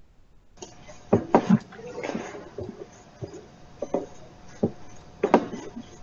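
Scattered sharp clicks and knocks on web-conference call audio, against a hiss that switches on just over half a second in. They belong to the clicking fault that runs through this recording.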